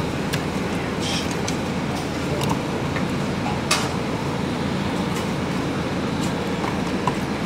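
Car idling at a standstill with the driver's window down: a steady low engine and fan noise, with a few light clicks and rustles from items being handled.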